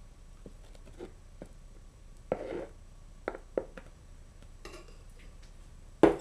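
Dishes knocking and clinking on a tabletop as thick whipped marshmallow mixture is poured from a mixer bowl into small cups. There is a brief scrape a little over two seconds in, then a few light taps, and one louder knock near the end.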